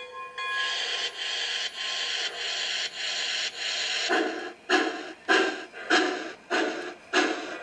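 Steam locomotive sound from an MTH HO-scale Norfolk & Western J-class 4-8-4 model's onboard sound system. The bell rings briefly at the start, then steady hissing steam chuffs come about every 0.6 s. About four seconds in, they turn into louder, deeper exhaust beats as the engine gets under way.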